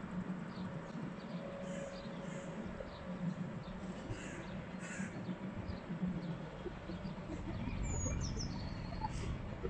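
A crow cawing a few times, loudest around four and five seconds in, with a short high bird call near the end. Under the calls runs a steady low rumble from the rail yard, where a steam locomotive is pulling out.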